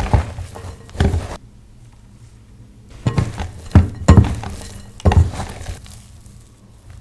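Kitchen utensils and bowls being handled: a string of irregular knocks and clinks in clusters, the loudest between about three and five and a half seconds in.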